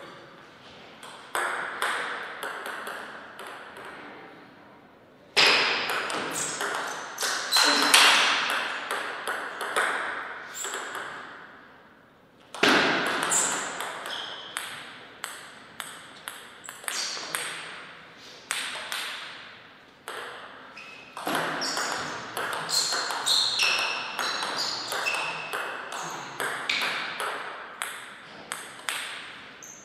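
Table tennis rallies: the ball clicking back and forth between paddles and table in quick strings of ticks, with short pauses between points.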